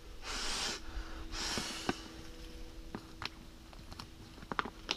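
Two forceful breaths blown into the opening of a Watershed Torpedo Gun waterproof gun case to inflate it, each about half a second long, the second slightly longer. Light clicks and rustles of the bag's fabric and seal being pressed shut follow.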